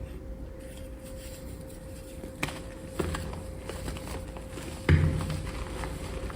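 Gym chalk being crushed: a few sharp crunches with dull thuds, about two and a half, three and five seconds in, the last the loudest, over a faint steady hum.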